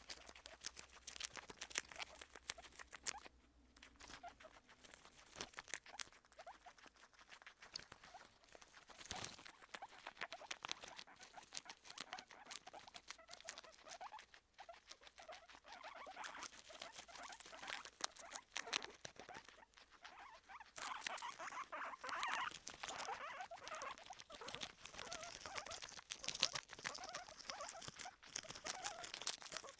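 Two guinea pigs chewing lettuce leaves right at the microphone: a fast, dense run of crisp crunches and small clicks that grows louder over the second half.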